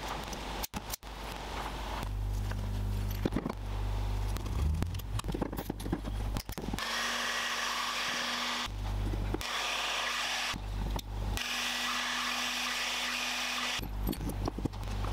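Workshop sounds in quick edited cuts: clicks and handling taps, then a small electric tool's motor running steadily in three stretches.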